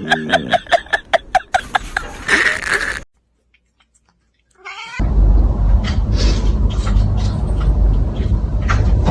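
A rapid run of short, pitched animal cries, about six a second, fading out after a second or two. After a cut to silence, a loud low rumbling background with scattered knocks begins.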